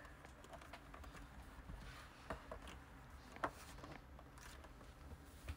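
Quiet room tone with a few faint knocks or taps, the clearest about two seconds in and again about three and a half seconds in.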